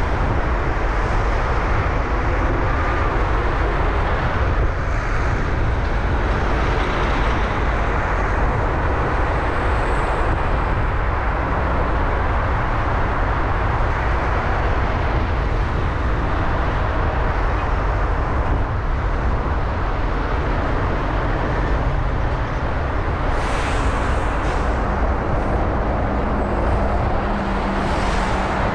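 Steady road and traffic noise from a car driving through city streets: a constant low tyre and engine rumble, with two brief hissing swells near the end.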